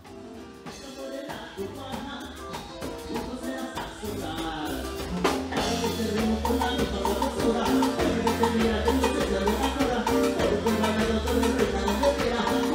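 Latin dance music with drums, percussion and bass, an instrumental passage that starts quietly, builds, and comes in at full band level about five seconds in.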